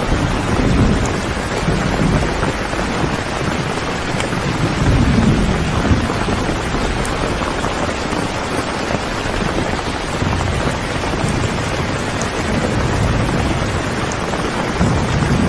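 Steady rain falling, with low rumbles of thunder swelling and fading a few times.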